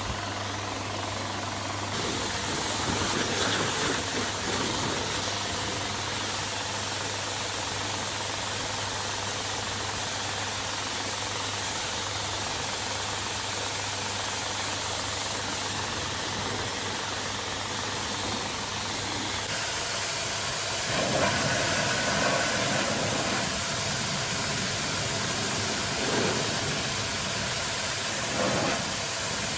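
Homemade high-pressure washer running: a steady electric-motor hum under the hiss of spraying water. About two-thirds of the way through, the spray sound swells louder a few times.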